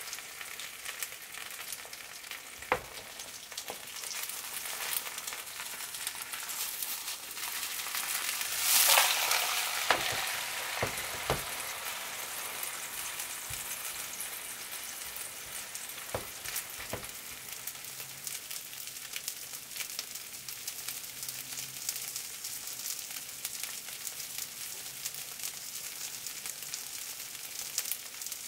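Green onion seafood pancake frying in oil in a nonstick pan, a steady sizzle with a louder surge of sizzling about nine seconds in. A silicone spatula knocks against the pan a few times as the pancake is worked and turned.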